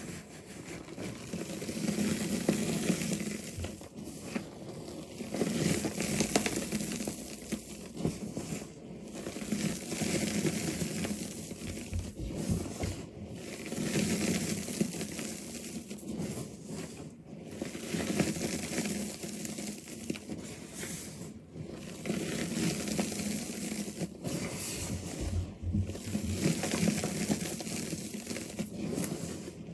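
Hands crushing and crumbling crunchy reformed powder chunks, a crisp crunching and rustling of breaking, powdery pieces that swells and eases in repeated waves every few seconds.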